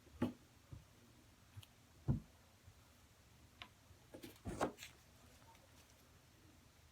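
A few scattered light knocks and clicks. The loudest come just after the start and about two seconds in, with a quick cluster of them around four and a half seconds.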